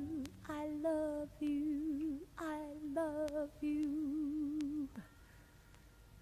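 Female jazz vocalist humming softly, wordless phrases with a wide vibrato and little accompaniment; the voice stops about five seconds in, leaving near silence.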